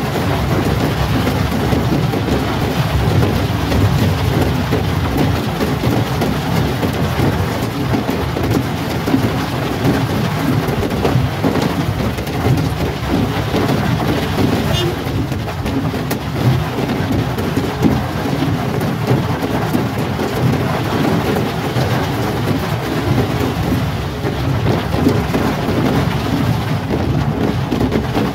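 Heavy rain drumming on a car's roof and windscreen, heard from inside the cabin as a dense, steady patter with a low rumble.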